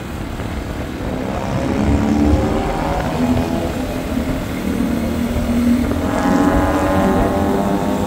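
Motorcycle engine running on the move through town traffic, its note coming up more strongly about two seconds in, with other vehicle engines around it.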